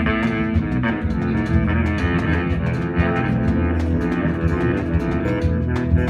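Live band music: plucked oud and strings played over bass guitar and a drum kit, with regular drum strokes.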